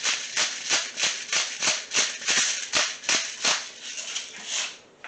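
Hand-twisted salt mill grinding salt crystals: a run of short, gritty crunching turns, about three a second, that stops near the end.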